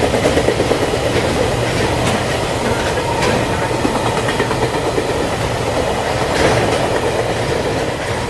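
Dubbed-in sound effect of a full-size train rolling by: a steady rumble with the clickety-clack of wheels over rail joints and a few sharp clicks.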